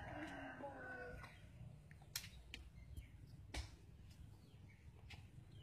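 A rooster crowing, its call falling away and ending about a second in, followed by a few scattered sharp clicks.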